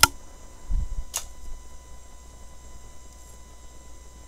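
A sharp click, a soft low thump, and a second click about a second in, then a faint steady hum.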